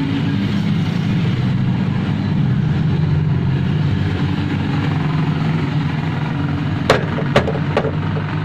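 A steady, loud, low mechanical drone like a running engine or motor. Three sharp knocks come close together near the end.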